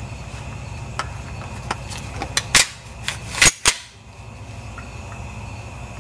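Shotgun action being worked by hand: a series of sharp metallic clacks, a few light ones and then three loud ones about halfway through.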